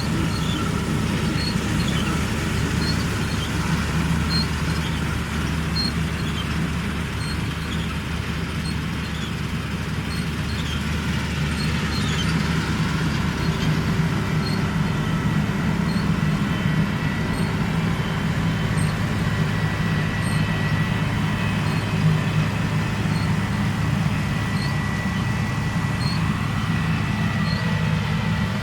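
New Holland CR960 combine harvester running steadily while cutting cereal with a Capello header: a continuous engine hum with mechanical whirring, and faint regular ticks about once a second. About halfway through, the low hum shifts slightly higher in pitch.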